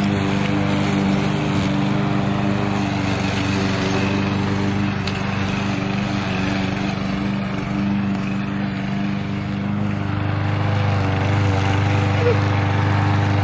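Walk-behind gas lawn mower with a rear grass bag running steadily while cutting grass.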